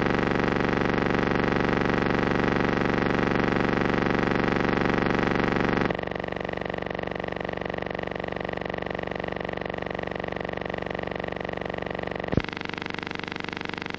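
Steady buzzing hum with many even overtones: noise from the transfer of a silent film, not recorded sound. Its tone shifts abruptly about six seconds in, and a click marks another shift near the end, at the splices between shots.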